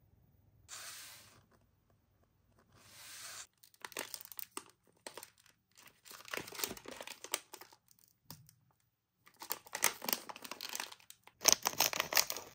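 Two soft swishes, then a foil blind-bag packet crinkling in bursts as it is handled. Near the end, scissors cut through the foil, the loudest part, with sharp crackles.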